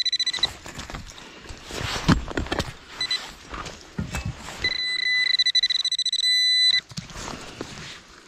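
Handheld metal-detecting pinpointer sounding a high, rapidly pulsing tone, briefly around the start and again for about two seconds in the middle, as it picks up a buried iron object, an old hammer head. Between the tones come scrapes and knocks of digging in soil and pine needles.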